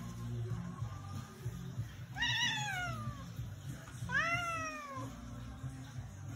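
Siamese cat meowing twice, two long calls that each rise then fall in pitch, the second a little after the first.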